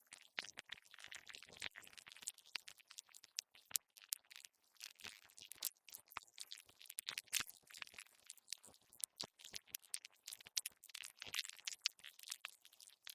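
Earthworm sound effect: a dense, irregular crackle of small clicks and scratchy ticks that comes and goes in clusters.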